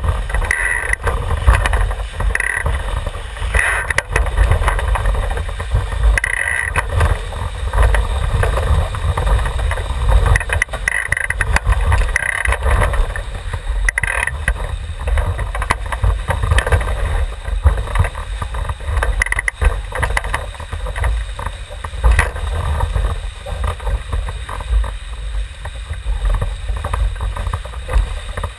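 Wind buffeting the microphone of a camera mounted on a Javelin sailing dinghy, over the steady rush and hiss of water and spray along the hull as it sails fast downwind. There are a few sharp knocks scattered through.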